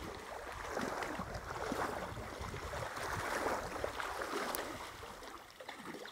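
Legs in waders pushing through knee-deep creek water, sloshing and splashing, over the flowing stream.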